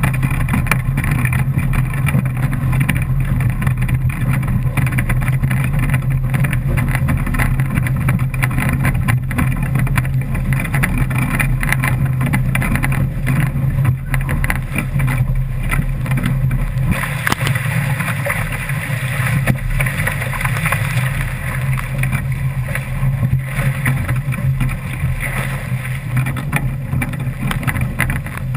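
Rush of water and spray along the hull of an A Class foiling catamaran sailing fast, with a steady low rumble of wind buffeting the hull-mounted GoPro; the spray hiss grows stronger from about 17 seconds in.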